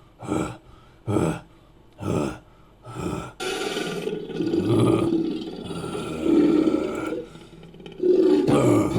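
Invented creature sound effect made from a human voice and sampled movie and game monster calls: four short grunting calls, then a long drawn-out call, with another starting near the end.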